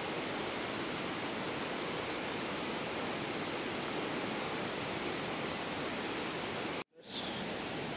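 Muddy, high-running river rushing over shallow rapids: a steady wash of water noise with a thin, steady high tone faintly above it. It cuts out for an instant about seven seconds in, then resumes.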